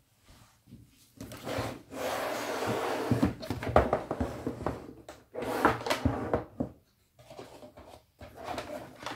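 Hands handling a hard plastic tool carry case and the drill kit in its moulded tray: rubbing and scraping with a few knocks, in three bursts.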